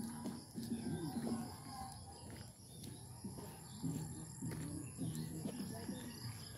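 Faint voices of people talking, over a steady high-pitched insect drone.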